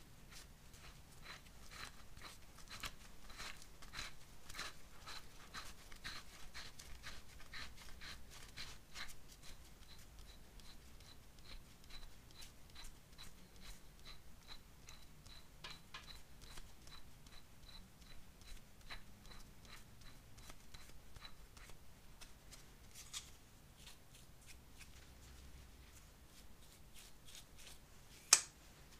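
Small brass-bristle brush scrubbing the threads of a large steel bolt, with a quick run of short scratchy strokes, a few per second, that thins out after about twenty seconds. A single sharp click comes near the end.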